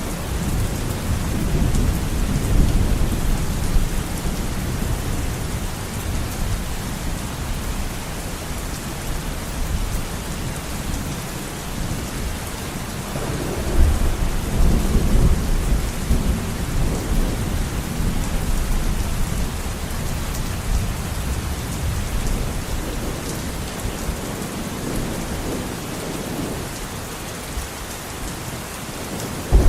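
Heavy rain beating steadily on a window, with wind. A deep low rumble swells up in the first few seconds and again about halfway through.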